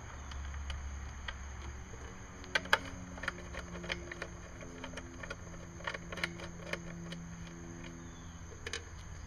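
Scattered light clicks and taps of hands handling the plastic recoil starter housing and pull cord of a lawnmower engine, over a steady low background hum.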